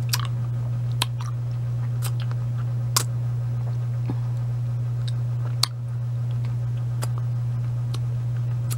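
Short sharp ticks, about one a second, over a steady low hum.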